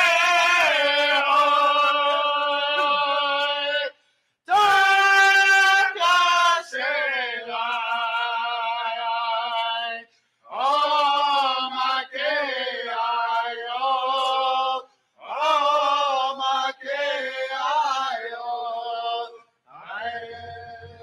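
A Lakota drum group's men singing a chant together: long, wavering sung phrases with short breaks between them every few seconds.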